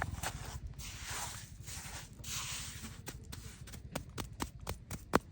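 Several rough scraping or rustling strokes, followed by a quick run of sharp clicks and taps; the loudest tap comes near the end.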